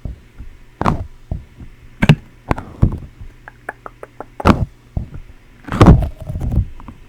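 Sticky glow-in-the-dark fidget balls handled close to the microphone: a string of soft knocks about a second apart as they are pressed and tapped together, with a run of small quick clicks partway through.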